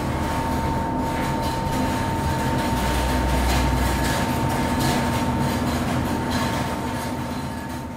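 Stockholm Metro C15 subway train running, heard from inside the car: a steady rumble of wheels on track with a constant high-pitched whine. A few sharp clicks sound from the wheels, and the low rumble swells for about a second midway.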